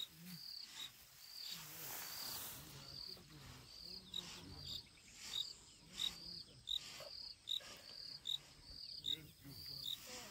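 Insect chirping, short high chirps at a steady rate of about one every three-quarters of a second, over faint low rumbles from the elephants greeting one another.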